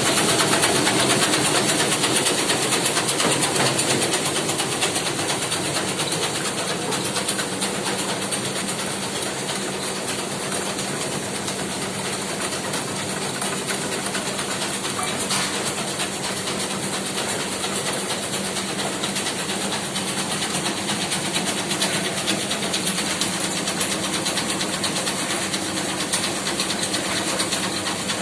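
A muri (puffed rice) and chana roasting machine running: a steady motor hum under a continuous dense rattle and hiss.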